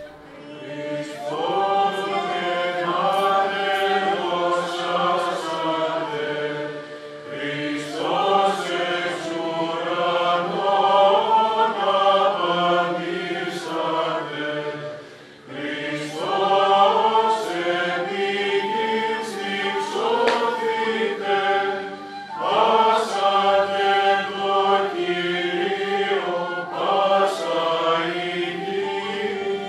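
An ensemble of men's and women's voices chanting a Byzantine hymn, accompanied by plucked kanun-type zithers and ouds, in long phrases with brief breaks between them.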